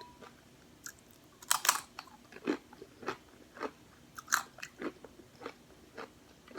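Close-up crunchy chewing of crisp fried corn: a string of irregular crunches, roughly one every half second.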